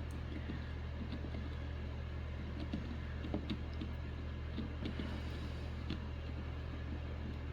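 Faint, scattered small clicks and scrapes of a soldering iron tip and tools working the screen's ribbon-cable joint on a circuit board, over a steady low hum.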